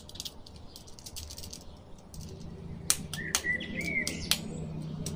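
Scattered sharp plastic clicks as the joints and wing pieces of an Iron Man action figure are moved by hand, with a few faint bird chirps a little past the middle.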